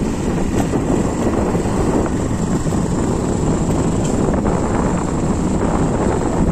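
Steady wind buffeting the microphone on a moving two-wheeler, with road and engine noise underneath.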